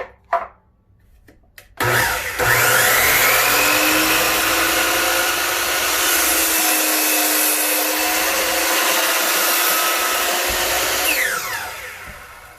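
DeWalt DW708 12-inch miter saw's motor switched on with a freshly fitted blade. It spins up with a rising whine about two seconds in, runs steadily and loudly for about nine seconds, then winds down with a falling whine near the end.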